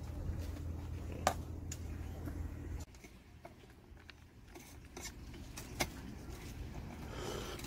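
A few faint clicks and knocks from a hand-held paper cup of iced coffee over a low steady hum. The hum cuts off sharply about three seconds in.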